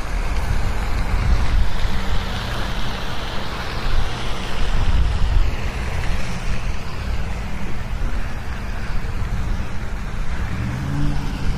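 Wind buffeting an outdoor microphone: a steady rushing noise with uneven low rumble. A faint low hum swells and fades near the end.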